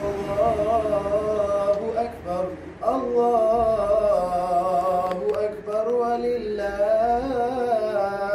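A man's voice chanting a slow, melodic line with wavering, ornamented pitch, pausing briefly between phrases about two to three seconds in.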